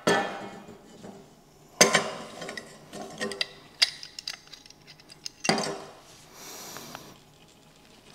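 Steel pipe wrenches clanking and clinking against a rusted steel shepherd-hook rod and the metal workbench as they are fitted and turned on a heat-loosened, rust-seized joint. Four sharp clanks about two seconds apart, with lighter clinks between.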